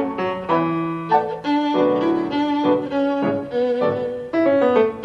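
Instrumental background music: a melody of bowed strings over piano, with short notes and some longer held ones.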